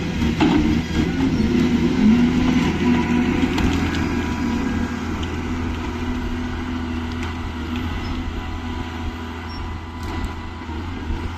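Diesel engine of a forestry harvester running steadily under work, a little louder in the first few seconds and then even.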